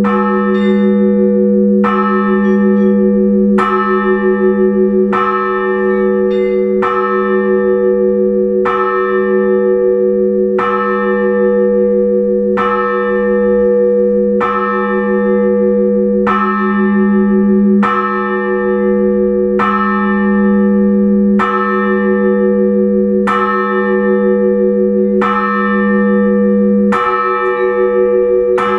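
Orthodox church bell struck in slow, even strokes about every two seconds, its deep hum ringing on between strokes: the measured ringing that calls the faithful to the liturgy.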